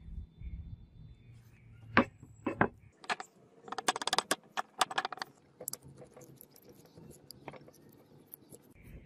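Handling sounds from wrapping a white sheet around a wooden sword handle on a workbench. There are a few sharp knocks, then a couple of seconds of crackly rustling, then faint scattered ticks.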